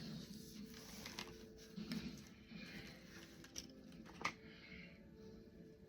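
Faint rustling and crinkling of craft items and packaging being handled, with a few light sharp clicks or taps.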